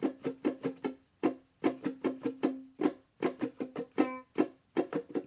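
Ukulele strummed in a down, down, down, up, down, up pattern: quick, even strums in short repeated groups with brief breaks between them.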